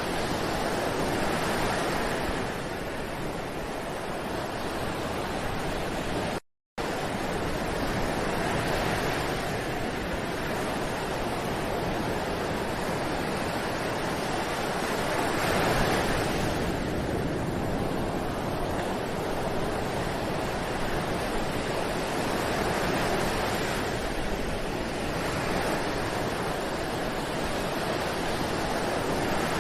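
Ocean surf: waves washing onto a beach in a steady rush that swells and ebbs every several seconds. The sound cuts out completely for a split second about six seconds in.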